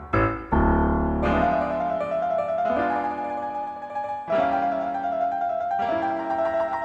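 Background piano music in an old silent-film style, playing held chords that change every second or so.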